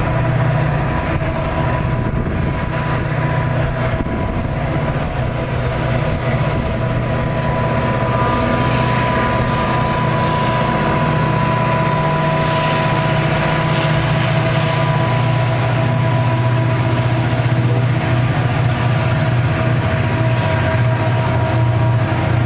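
Diesel freight locomotives working a train, a steady low engine drone with a high whine held over it.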